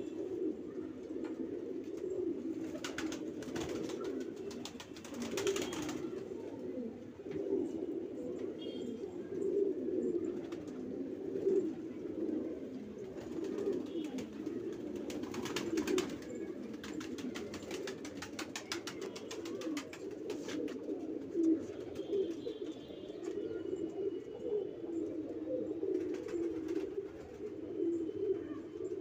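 A flock of domestic Banarasi pigeons cooing continuously, many overlapping calls making a dense low murmur. A few bursts of fast rattling, each lasting a second to several seconds, come through about three seconds in, again around five seconds, and from about fifteen to twenty seconds.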